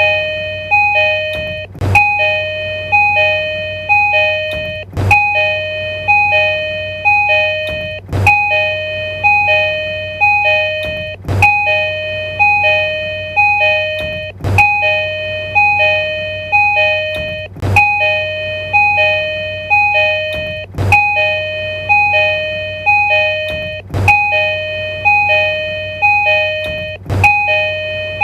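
Tokyu commuter train door chime: a short chime of alternating high and low tones, repeated over and over, with a sharp click starting each group about every three seconds, over a steady low hum.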